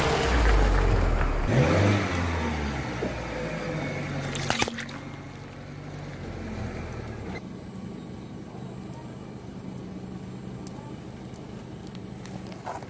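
Car engine running, its pitch shifting as the car moves, then fading away over the first three seconds. A single sharp click about four and a half seconds in, followed by a quiet, steady background hum.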